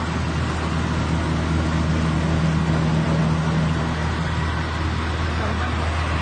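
SN300R rice milling machine running steadily: a constant low hum with an even rushing noise over it.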